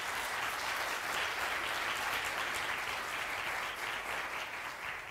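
Audience applauding, a steady wash of many hands clapping that tapers off near the end.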